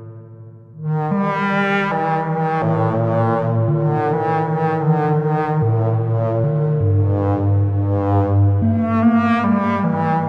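Buchla 208r analog synthesizer playing notes set off from the Make Noise 0-Ctrl's touch plates: a low note stepping to a new pitch every second or so under a run of quicker, brighter notes. It comes in strongly about a second in, after a brief quiet moment.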